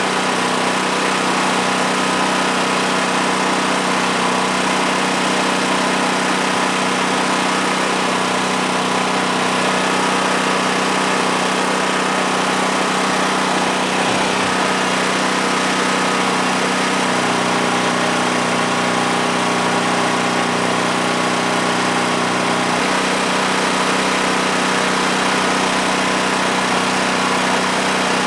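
Portable generator engine running steadily at constant speed, powering the heating iron of a plastic pipe fusion machine; its tone shifts slightly twice in the second half as the load changes.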